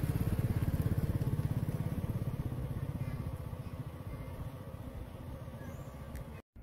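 A small motorcycle engine running with a rapid, even putter of about a dozen beats a second, fading gradually from about halfway and cutting off suddenly near the end.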